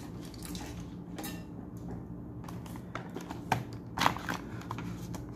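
Light knocks and clatter of handheld digital multimeters in rubber holsters being handled and set down on a table, the loudest knock about four seconds in as the second meter is placed, over a steady low hum.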